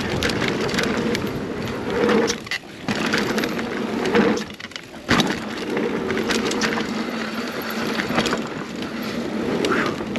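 A 2021 Scott Spark 970 full-suspension mountain bike riding down a rough dirt trail: tyres rolling and rattling over the ground with the bike clattering. The noise dips briefly twice, about two and a half and four and a half seconds in.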